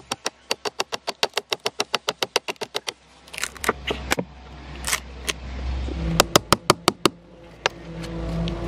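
Background music with a fast, steady clicking beat, about six or seven clicks a second, that breaks up briefly in the middle; low held notes come in near the end.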